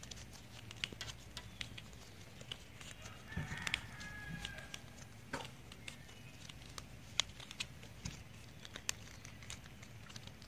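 Scattered light clicks and rustles of a string trimmer's plastic spool and nylon line being handled and wound. A short bird call comes about three to four seconds in.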